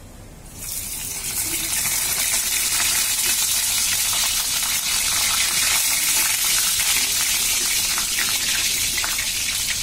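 Bay leaves and panch phoran spices sizzling in hot oil in a kadhai, starting suddenly about half a second in as they hit the oil, then a steady hiss with fine crackles: the tempering (phoran) stage of the curry.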